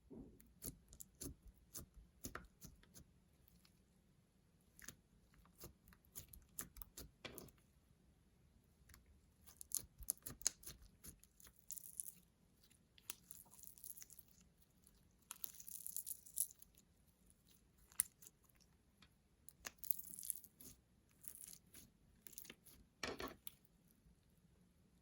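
Slime being worked by hand: faint, irregular sticky clicks, pops and crackles as it is pressed, stretched and folded, with denser bursts of crackling now and then.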